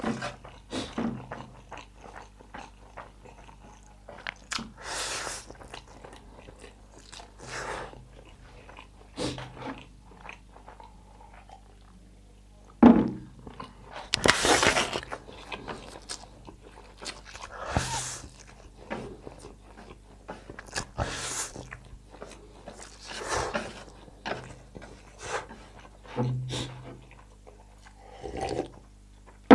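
Close-up eating sounds of a person chewing and slurping spicy instant noodles: wet chewing, lip smacks and mouth clicks. There is a loud slurp of noodles about halfway through.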